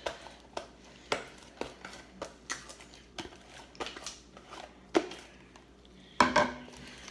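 Fingers scraping and tapping against the inside of a clear plastic food container while slime is scooped out of it: irregular short clicks and knocks, with a sharper knock about five seconds in and a louder thump about a second later.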